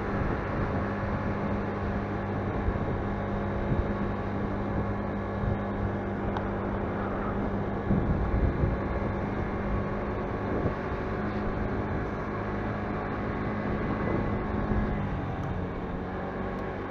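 Motorcycle engine running steadily at a low, even pitch while riding slowly, heard from the bike itself, with a noisy rumble of road and wind under it. A brief louder rumble comes about eight seconds in.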